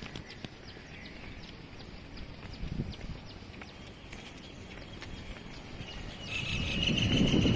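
Footsteps on a concrete path with faint bird chirps in the open air. Near the end, a steady high-pitched buzz joins in and a low rumble swells to become the loudest sound.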